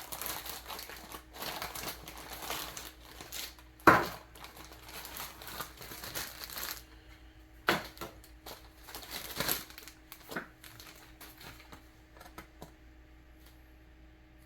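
Packaging being handled and opened, rustling and crinkling, with one sharp knock about four seconds in. After about seven seconds it turns quieter, with a few light clicks and handling noises.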